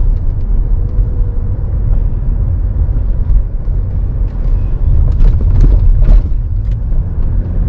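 Steady low rumble of a car in motion heard from inside the cabin: road and engine noise, with a few faint clicks in the second half.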